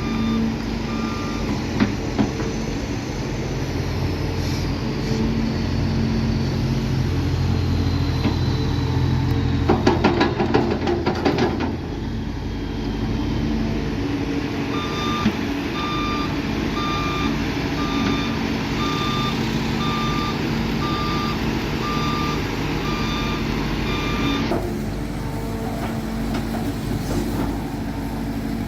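Heavy machinery's diesel engine running steadily, with a reversing alarm giving a steady series of beeps through the second half. A quick burst of rattling clatter about ten seconds in.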